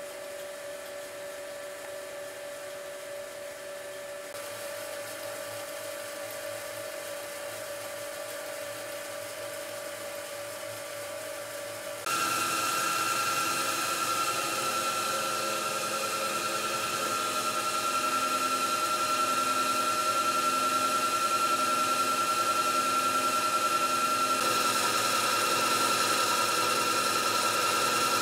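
Electric motor and spindle drive of a machine tool running at a constant speed, a steady hum with fixed tones. About twelve seconds in, the sound jumps louder and a steady high whine comes in.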